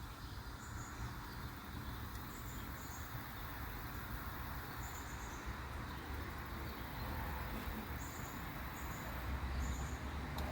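Outdoor ambience: a steady low rumble with short, high chirps repeating irregularly, about once a second.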